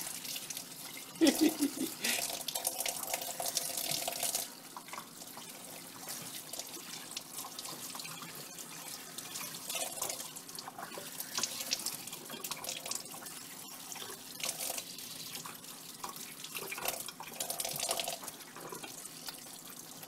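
Kitchen tap running into a stainless-steel sink while a plucked grouse is rinsed and rubbed by hand under the stream, the splashing changing as the hands and bird move in and out of the flow. A brief pitched sound about a second in.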